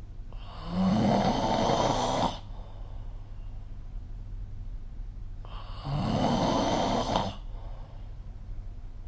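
A sleeping person snoring: two long snores, each about two seconds, some five seconds apart.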